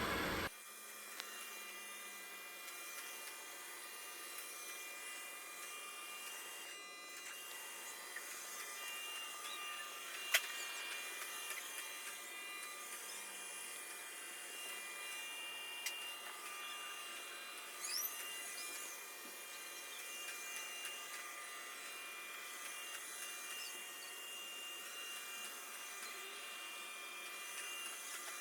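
SwitchBot S10 robot vacuum-mop running across the floor, a quiet steady whine with a few light clicks and one sharp click about ten seconds in.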